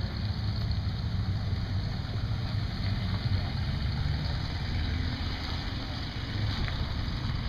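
A late-1950s sedan's engine running slowly and steadily as the car creeps past at walking pace.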